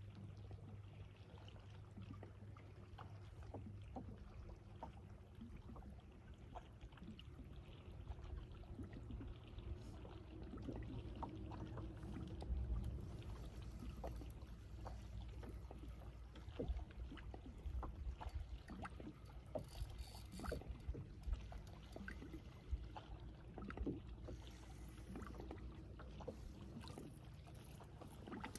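Sounds on a small fishing boat on the water: a faint low hum, with scattered small knocks and clicks against the hull and water moving around it.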